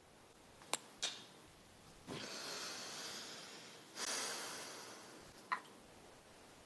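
Two long, breathy exhales close to the microphone, each starting sharply and fading over about two seconds, after a couple of small clicks about a second in.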